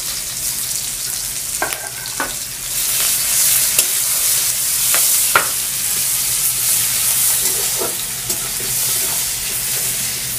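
Sliced onions sizzling in hot oil in an aluminium kadai while a spatula stirs them, with occasional clicks of the spatula against the pan. The sizzling grows louder about three seconds in.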